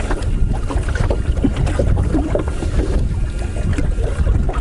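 Wind rumbling steadily on the microphone over open water, with light water sounds.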